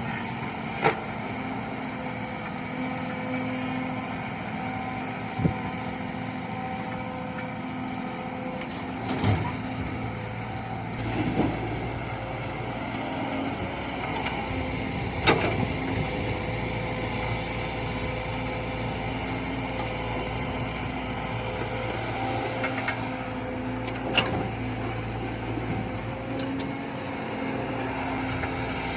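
Diesel engine of heavy construction machinery running steadily, with a change in its hum about eleven seconds in. Sharp knocks come now and then, about six of them.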